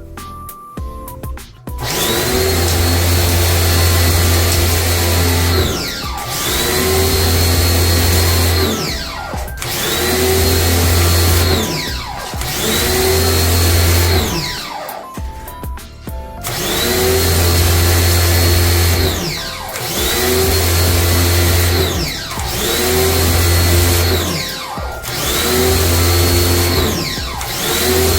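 A small electric motor, most likely a power tool used for the air-conditioner cleaning, run in repeated bursts of two to three seconds, about eight times. Each burst spins up quickly and winds down with a falling whine.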